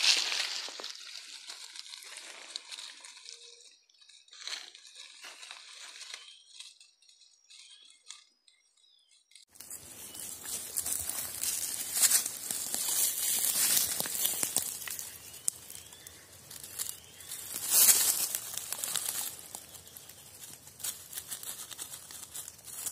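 Dry leaf litter crackling and rustling in irregular bursts as a nine-banded armadillo walks and roots through it. About nine and a half seconds in the background changes abruptly to a steady hiss, with the crackling going on and loudest twice more.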